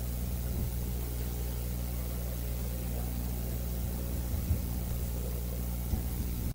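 Steady low electrical mains hum with a faint hiss behind it, with a couple of faint knocks about four and a half and six seconds in.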